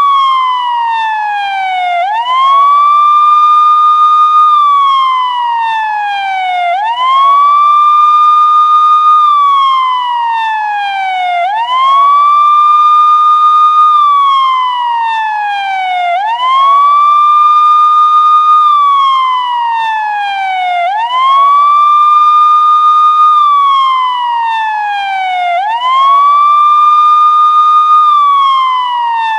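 Police siren in wail mode: a single tone that sweeps quickly up, holds high for about two seconds, then slides slowly back down, repeating about every four and a half seconds.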